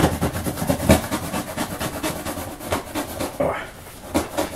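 A knife slitting the packing tape along a cardboard box seam: a rapid run of short scratchy clicks, with one sharper knock about a second in.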